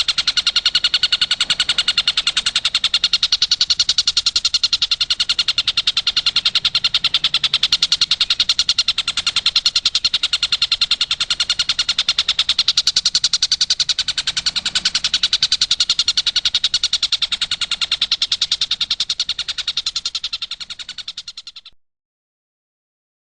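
Stork-billed kingfisher (tengkek buto) giving its rapid 'tembakan' call: a fast, unbroken rattle of sharp, high notes held at a steady pace, cutting off abruptly near the end.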